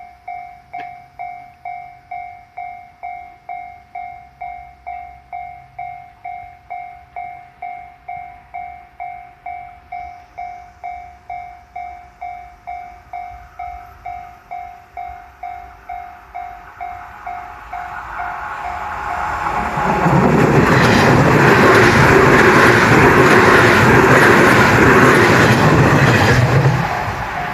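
Japanese level-crossing warning bell dinging about twice a second as a 201 series electric train approaches. The train rushes past at high speed from about 20 seconds in, drowning out the bell, and its noise drops away near the end.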